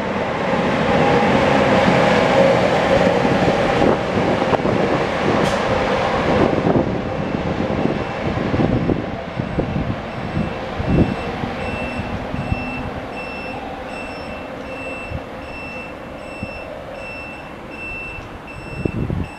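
NJ Transit ALP-45A locomotive pushing a bi-level commuter train away from the platform: loud running noise with a steady hum over the first few seconds, fading as the train pulls away. From about ten seconds in, a high beep repeats about every half second.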